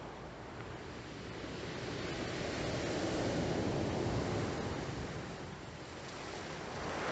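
Black Sea surf: a wave rushes in, swelling to its loudest midway and easing off, and the next wave begins to build near the end.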